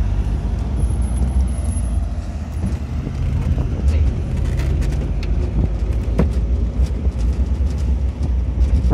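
A vehicle driving on a rough dirt road: a steady low rumble of engine and tyres, with scattered knocks and rattles as it goes over the bumps.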